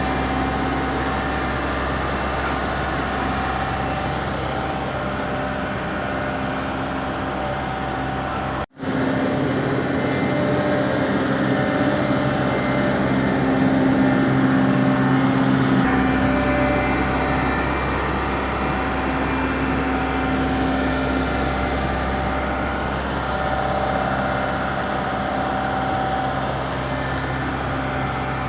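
Motor vehicle engines running steadily, with a brief cut-out of all sound about nine seconds in.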